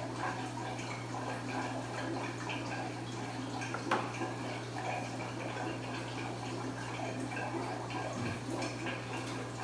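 Aquarium equipment running: a steady low hum with trickling, dripping water. One sharp click about four seconds in.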